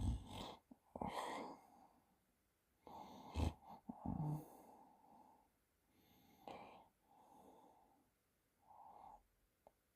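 A sleeping man snoring and breathing heavily, about six irregular breaths with pauses between them, one with a brief low rattle a little after four seconds.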